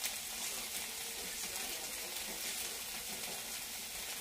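Diced onions frying in butter in a pan on the hob, a steady soft sizzle and crackle.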